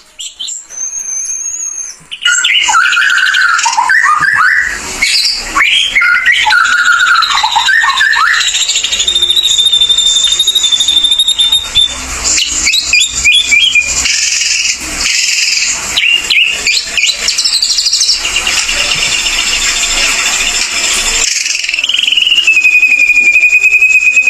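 Ashy drongo (srigunting abu) in full, continuous song: a varied run of whistles, sliding notes and quick chattering phrases, ending in one long held whistle that falls slowly.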